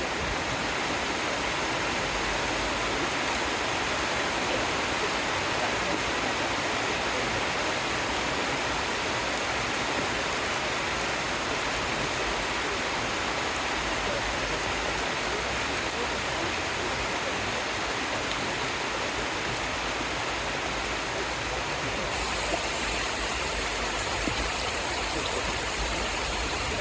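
Rain falling steadily, an even, unbroken hiss of water.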